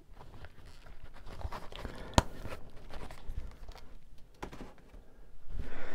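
Tabletop handling of collectible coins and their packaging: scattered light clicks, with a sharp click about two seconds in and another a little after four seconds, then a rustle near the end.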